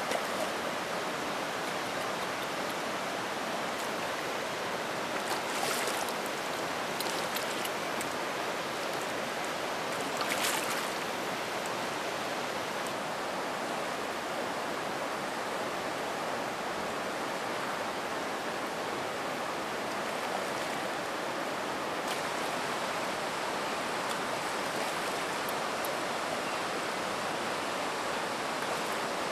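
Shallow, clear river rushing steadily over a stony bed in a riffle, with a couple of brief louder splashy bursts about six and ten seconds in.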